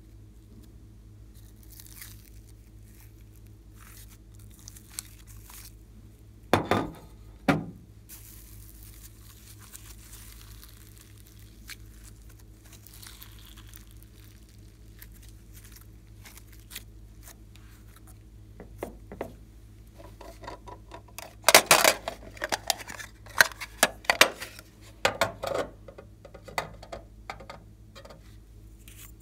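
Hands stretching, pulling and squishing sticky slime, with soft tearing and crinkling sounds. Two loud sticky squelches come about seven seconds in, and a run of louder squelches and knocks follows in the last third.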